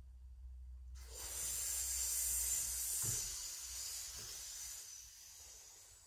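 A long hissing breath drawn in through a rolled tongue (Shitali pranayama). It starts about a second in, is strongest over the next two seconds, then slowly fades away.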